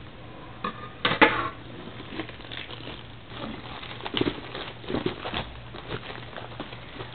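Hands opening and handling a trading-card box and its packaging: irregular rustling, scraping and taps of cardboard and wrapper, with the sharpest crackle about a second in.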